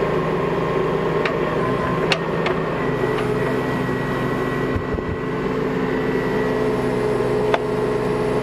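Bobcat mini excavator's diesel engine running steadily, with a few short sharp knocks over it.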